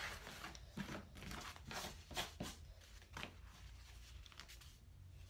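Rotary cutter rolling through the wallet's lining and cork fabric along a clear acrylic ruler, trimming off the excess. This is followed by a handful of light clicks and taps as the ruler and cutter are lifted and set down on the cutting mat.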